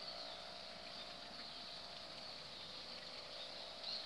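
Steady drone of the hummer bow on a five-foot wau puyoh kite flying high: a constant mid-pitched hum with a steady high buzz above it. A short, sharper sound rises briefly near the end.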